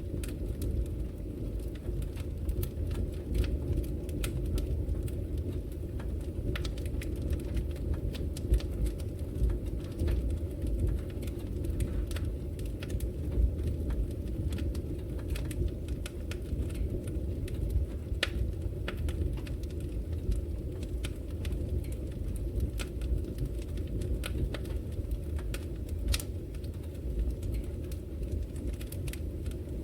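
Wood logs burning in a fireplace: a steady low rumble of the flames with frequent sharp crackles and pops scattered throughout.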